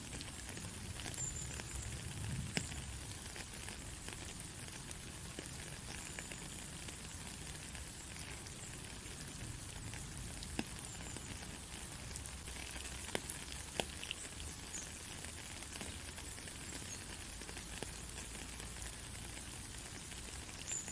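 Steady rain falling on a country road: an even hiss with scattered sharp ticks of individual drops.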